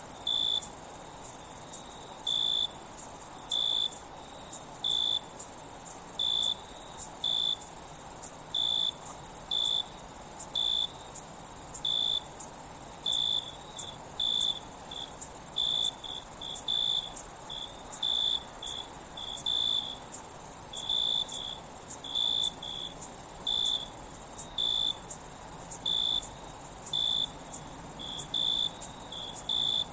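Night insects: crickets chirping, a steady high-pitched trill with short chirps at a lower pitch repeating about once a second, unevenly spaced.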